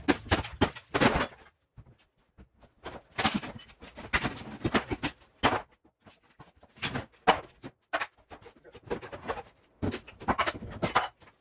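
Irregular knocks and clatters, a dozen or so sharp hits and rattles spread unevenly over several seconds with short gaps between them.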